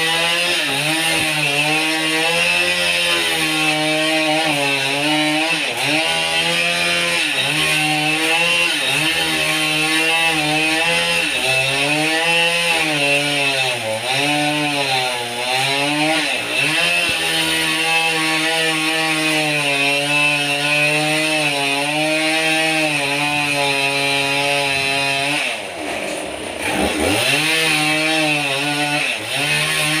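Two-stroke chainsaw cutting into a large rain tree (trembesi) log, running at high revs. Its pitch dips and recovers again and again as the chain loads up in the wood. About 26 s in, the engine note drops sharply, almost to idle, then revs back up.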